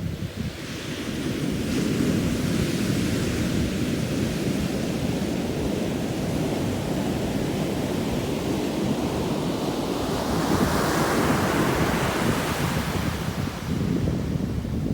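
Ocean surf on a beach: a steady rumble of breaking waves, with wind on the microphone. A wave breaks and washes up with a rising hiss about ten seconds in, then fades near the end.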